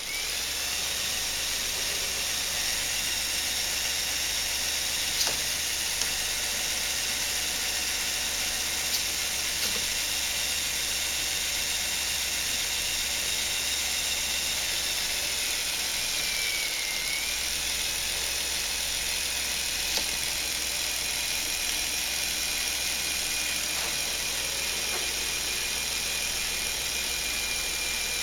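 Lego Technic model aircraft engine running, its geartrain turning the propeller with a steady whir and a high thin whine. About halfway through, the whine dips in pitch briefly and recovers. A few light plastic clicks sound over it.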